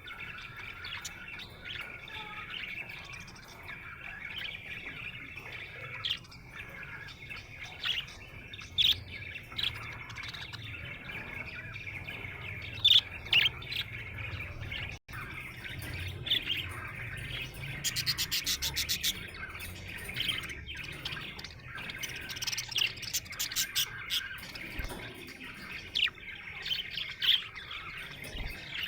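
Budgerigar chirping and warbling without a break, a chattering stream of sharp high chirps, with a fast run of clicking notes about two-thirds of the way through.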